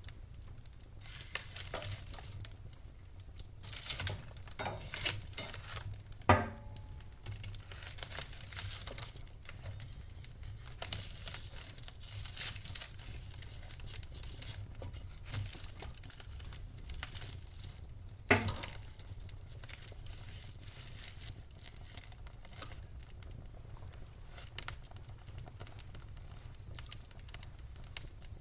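Wood fire burning in a fireplace: continuous fine crackling and hissing of burning logs, with two loud sharp pops, one about six seconds in and one about eighteen seconds in.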